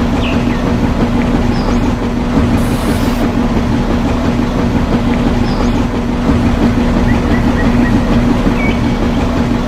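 Small electric motor of a miniature home-made concrete mixer running, a steady hum over a dense mechanical rattle.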